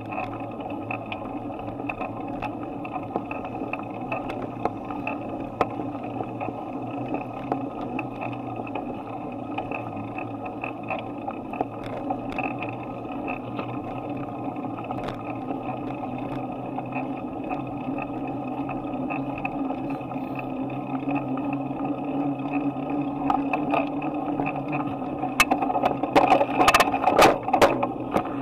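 Steady rolling noise of a bicycle ride picked up by a handlebar-mounted action camera, with small clicks and rattles throughout. Near the end there is a run of louder, sharper knocks and rattles.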